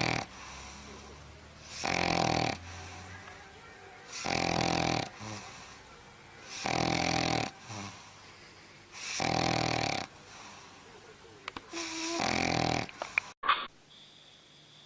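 French bulldog snoring in its sleep: a snore on each breath about every two and a half seconds, six in all, with fainter breathing between. The snoring cuts off abruptly about 13 seconds in.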